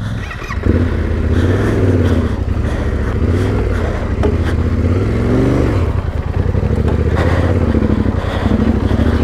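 Trail motorcycle engine under way off-road, its revs rising and falling repeatedly with the throttle, with scattered knocks and clatter.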